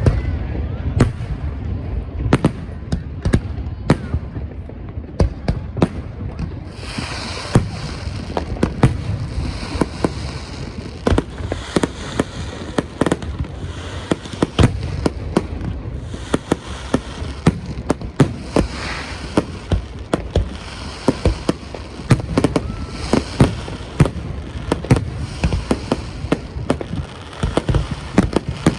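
Aerial fireworks going off in rapid succession: many sharp bangs over a continuous low rumble. A hissing crackle joins in about a quarter of the way through and carries on.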